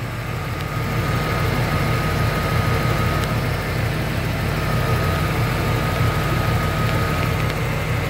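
Ford Bronco engine idling steadily, heard close up in the open engine bay, with a faint steady high whine over the low engine note.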